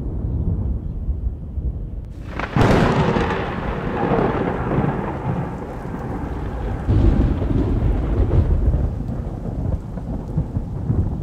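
Thunder from a summer thunderstorm: a low rumble, then a sharp crack about two and a half seconds in that rolls away over several seconds, and a second rumble swelling a few seconds later.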